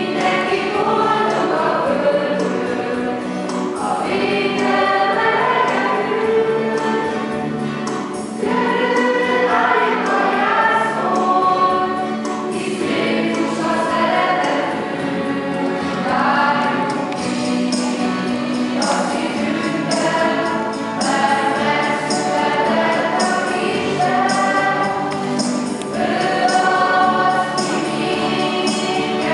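A choir singing a Christmas song in a large church.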